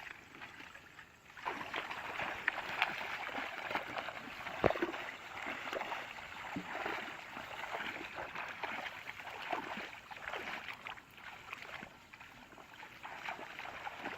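Water splashing and sloshing with many small crackling ticks, and one sharp knock about five seconds in.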